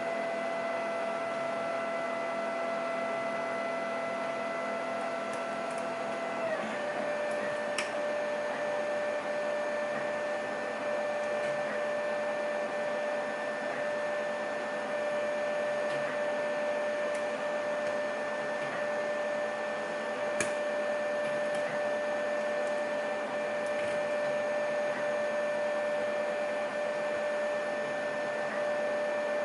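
Steady whine of a small electric motor, stepping down slightly in pitch about six seconds in and then holding steady, with a few faint clicks from lock picks working in a lock.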